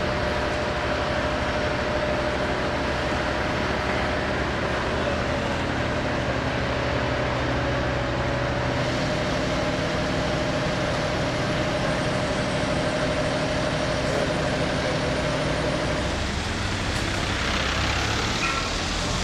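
An engine running steadily at constant speed: a droning hum with a steady tone that stops about sixteen seconds in, leaving a rougher noise.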